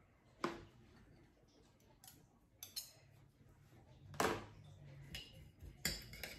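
Metal spoon clinking and tapping against a glass mixing bowl while shredded coconut is stirred with green gel food colouring: a few separate clinks, the loudest about four seconds in, then several quick ones near the end.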